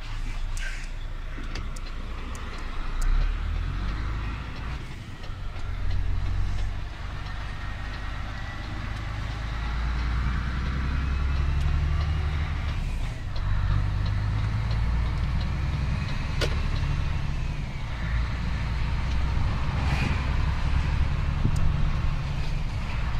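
Lorry's diesel engine running on the move, heard from inside the cab as a low drone that swells and eases off a few times, with faint road noise and a few light clicks.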